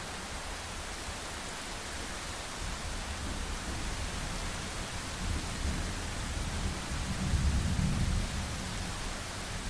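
Steady hiss of heavy rain, with a low rumble of thunder building about a third of the way in and loudest near the end.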